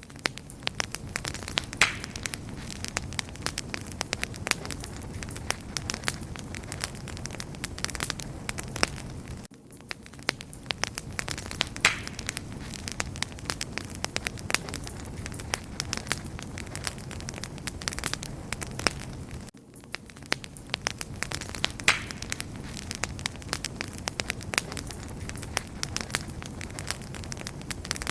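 Wood fire crackling steadily, with many sharp pops and snaps over a low steady rush. The level briefly drops about every ten seconds.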